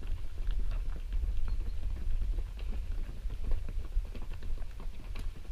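Running footsteps of several trail runners on a cobbled uphill ramp: quick, uneven shoe strikes on stone over a steady low rumble.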